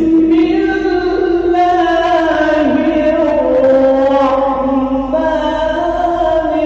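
A man reciting the Quran in the melodic qirat style into a microphone, holding long notes that slowly glide and step in pitch.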